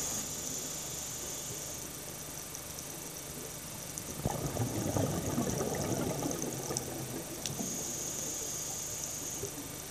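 Scuba diver breathing through a regulator, heard through the camera housing underwater: a hiss, then a rush of exhaled bubbles from about four seconds in for a couple of seconds, then another hiss near the end, over a steady underwater hiss.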